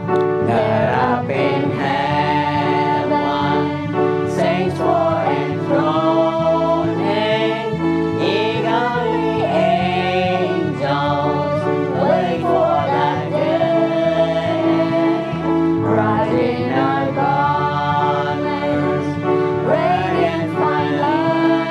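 Church congregation singing a worship hymn together, over a steady instrumental accompaniment of held chords and a moving bass line.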